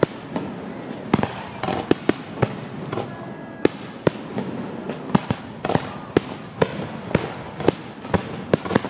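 Fireworks going off: sharp bangs in quick, irregular succession, about two or three a second, over a steady crackling hiss.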